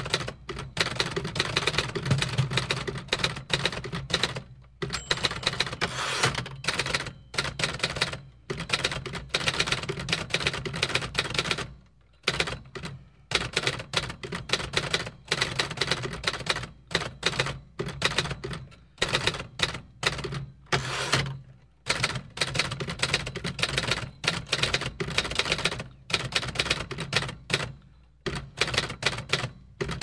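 Typewriter being typed on: fast runs of sharp key-strike clicks, broken by several short pauses.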